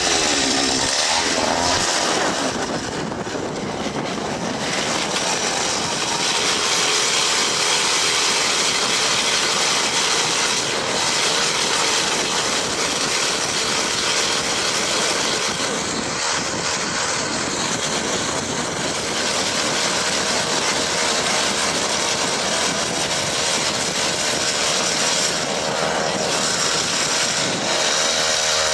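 Power ice auger's small engine running at high speed without a break, boring a hole through lake ice; its pitch wavers slightly as the load changes.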